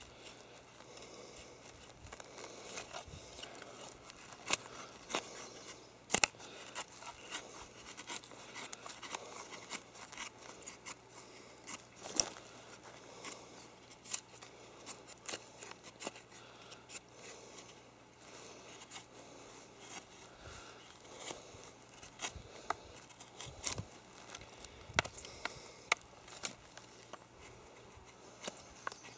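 Terava Skrama heavy carbon-steel knife shaving thin feather curls off a wooden stick: a run of quiet, irregular scraping strokes, with a sharper click now and then as the blade bites.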